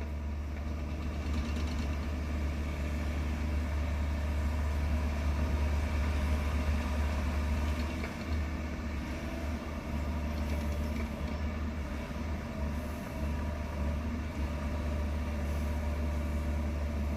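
An engine idling steadily with a deep, even hum.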